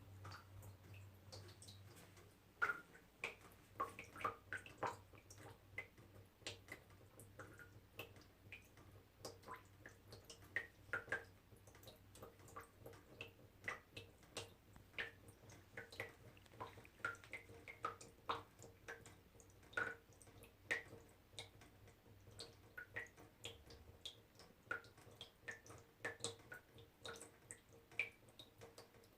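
Small water drops dripping one after another, irregular plinks a few a second, each with a short pitched 'plip', over a faint steady hum.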